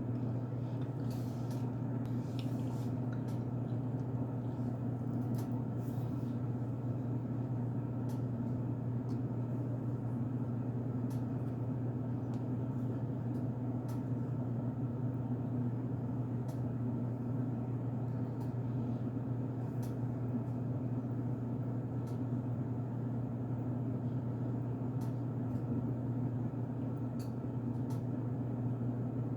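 A steady low hum that holds unchanged throughout, with sparse faint clicks and crackles over it.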